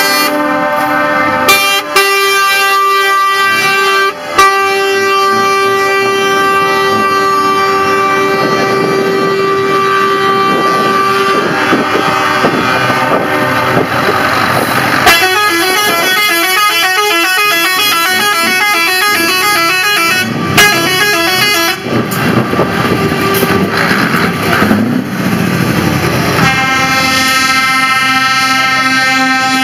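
Truck air horns sounding as parade lorries pass: long held chords of several tones, with a run of quickly changing notes about halfway through before a held chord returns near the end.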